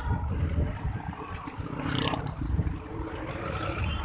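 Wind buffeting the microphone of a phone on a moving bicycle, an uneven low rumble over the noise of street traffic.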